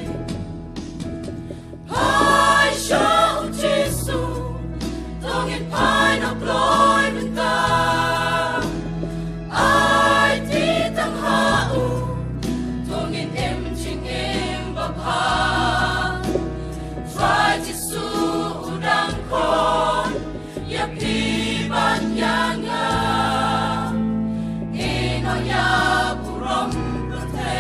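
A mixed church choir singing a gospel hymn in phrases a few seconds long, over a steady low accompaniment.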